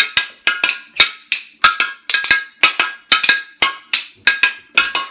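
A glass beer bottle struck by hand as a homemade percussion beat, about four sharp taps a second in an uneven rhythm, each tap ringing briefly.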